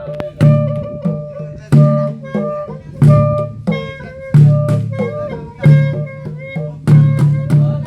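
Lao klong tum drum-procession music played through an amplified sound system: a deep drum beat lands about every 1.3 s under a sustained melody line.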